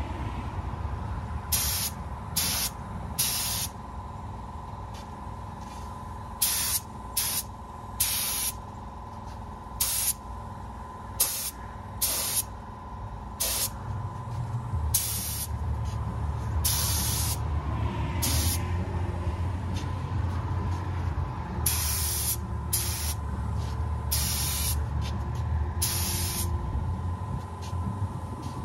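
Compressed-air spray gun spraying epoxy primer in many short trigger-pulled bursts of hiss, each under a second, with gaps between passes. A low steady hum comes in about halfway through.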